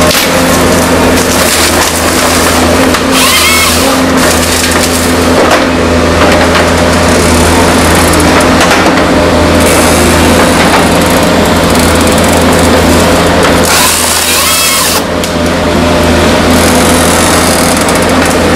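Forestry harvester's diesel engine running steadily under load while the Log Max harvester head grips trees, with wood cracking and splintering. Twice, about three seconds in and again near fourteen seconds, a short burst of louder noise with a rising whine, the head's saw cutting through a stem.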